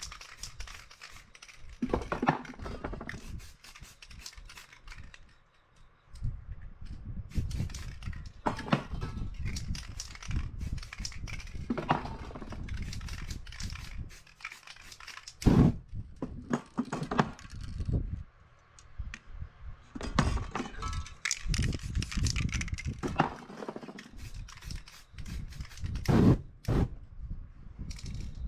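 Aerosol spray paint hissing from the can in repeated short bursts through a plastic stencil, mixed with scraping and knocking as the stencil and can are moved over the board.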